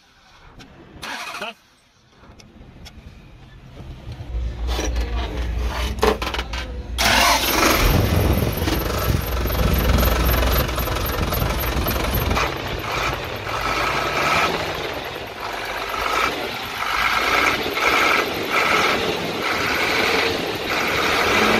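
Nissan UD NE6 six-cylinder diesel engine being cranked over and catching about seven seconds in, then running steadily. This is its first start after the head gasket was replaced.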